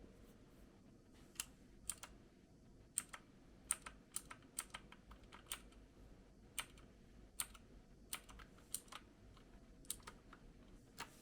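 Typing on a Rampage KB-R97 X Tracer mechanical keyboard with Blue switches: about twenty sharp, unevenly spaced key clicks, starting about a second and a half in.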